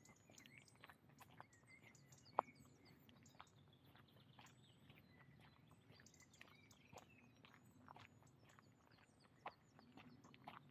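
Faint footsteps on a woodland path, with small birds chirping now and then, and one sharp click about two and a half seconds in.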